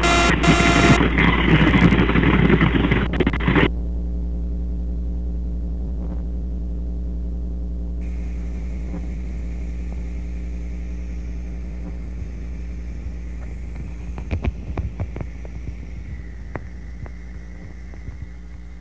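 Harsh, loud static noise that cuts off suddenly a few seconds in, leaving a low steady droning hum with several overtones that slowly fades. A faint high whistle joins partway through, and scattered crackles and clicks come near the end.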